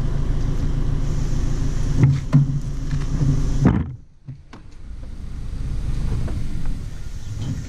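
Empty steel wheeled trailer hand-pulled over asphalt: a steady rolling rumble with scattered knocks and rattles from the frame. It breaks off abruptly about halfway through, then builds back up.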